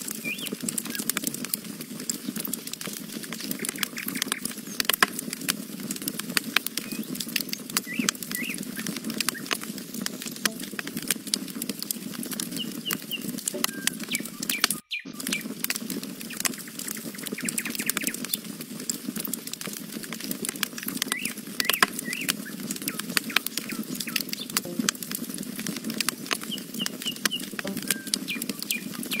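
Wood campfire crackling and popping steadily as the logs burn, with small birds chirping now and then in the background. The sound cuts out for an instant about halfway through.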